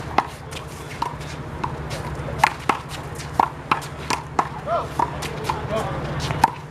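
A rally of one-wall handball: the big blue rubber ball smacked by hands, slapping the wall and bouncing on the court, a dozen or so sharp pops at uneven intervals over a steady low hum.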